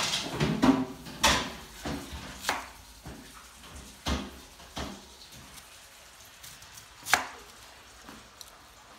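Kitchen knife slicing red onions on a plastic cutting board: irregular knocks as the blade cuts through and hits the board, several close together in the first couple of seconds, then sparser, with a sharp one about seven seconds in.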